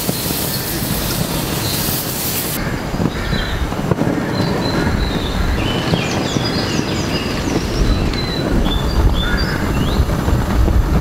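Birds chirping over a steady rumbling noise. A hissing noise in the first two and a half seconds drops away, and the chirps come in from about three seconds in.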